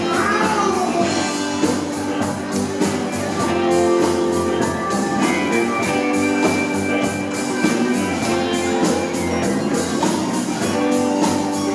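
Live rock band playing: electric guitars over bass, drums and keyboards, with a steady drum beat and a long held high note from about five seconds in.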